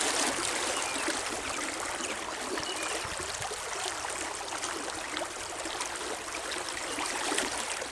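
Creek water flowing steadily: an even rushing hiss of moving water.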